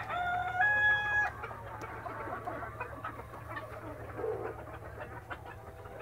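A rooster crowing: its held, stepped call ends about a second in. After it come quieter clucking and scattered calls from the chicken flock.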